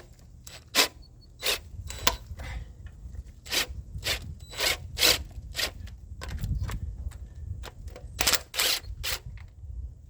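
Hand tools knocking and clinking against metal parts during engine disassembly: irregular sharp clicks and clanks, about fifteen in ten seconds, with two louder ones close together near the end, over a steady low rumble.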